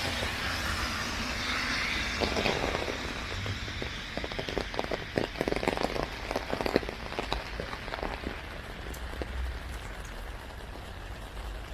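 Rain falling on an umbrella: a steady hiss that thins over the first few seconds, then a run of close, sharp drop taps in the middle.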